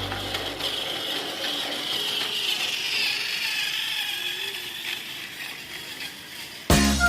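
Battery-powered Plarail toy train's small geared motor running, a steady whirring whine that dips a little in pitch midway and comes back up. Music cuts in near the end.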